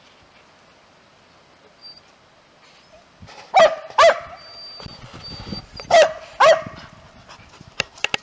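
A dog barking: two pairs of short barks about two seconds apart, after a few quiet seconds.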